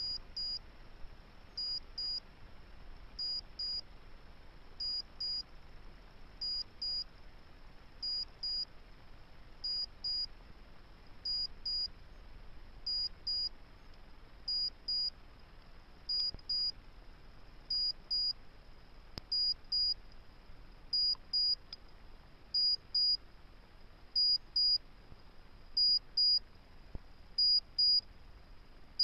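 High-pitched electronic double beeps from a beeper aboard a two-stage amateur rocket, repeating steadily about every second and a half over a faint hiss.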